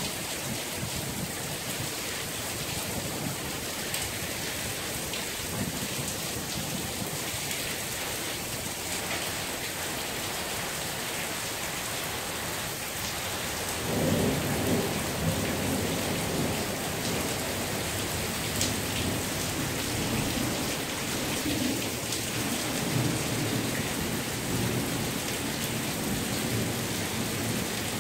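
Heavy rain falling steadily on lawns and pavement, a continuous hiss, with a low rumble swelling in about halfway through.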